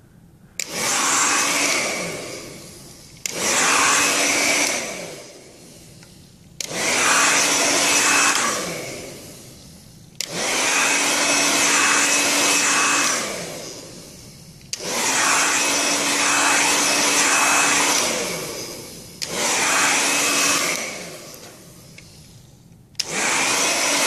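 Hair dryer switched on and off in short pulses, seven times: each time the blower comes on abruptly, runs for two to three seconds with a whine, then winds down as the motor slows. It is being pulsed to hold the air around the sensors at about 40 °C.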